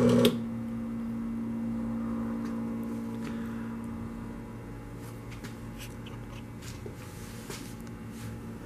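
XpressFill XF460 bottle filler's pump running as it dispenses vegetable oil, then shutting off sharply just after the start as the timed fill ends. A steady low hum remains, with a few faint scattered clicks.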